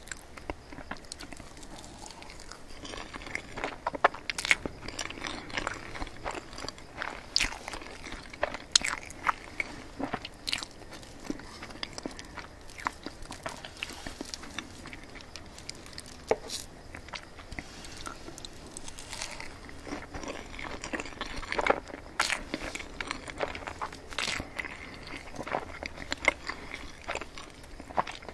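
Close-miked eating of mille crêpe cake: soft, wet chewing with many irregular sharp mouth clicks and smacks.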